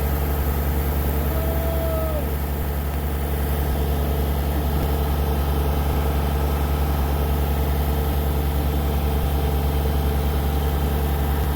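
An engine idling steadily, with a fast, even throb and a deep drone.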